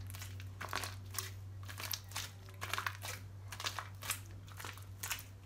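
Very soft, sticky homemade slime of glue and toothpaste being squeezed and pulled between the hands, giving irregular sticky clicks and pops, a few a second, over a steady low hum. The slime is too runny, which she puts down to too much toothpaste.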